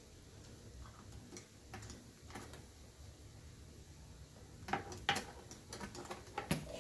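Irregular light clicks and knocks as the clock's pendulum rod is handled at the movement, coming thicker and louder near the end.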